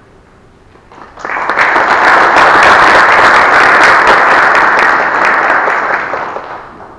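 Audience applauding, a dense patter of many hands clapping that starts about a second in, holds steady, and fades away near the end.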